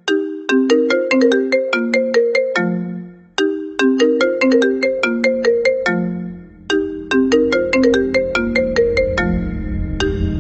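Trap-style remix of an iPhone ringtone: a short melody of quick plucked, bell-like notes repeating three times, about every three and a half seconds. A low bass swells in under it over the last few seconds.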